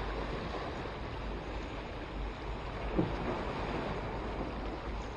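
Sea waves washing against the concrete blocks of a breakwater, a steady surf noise, with a brief knock about three seconds in.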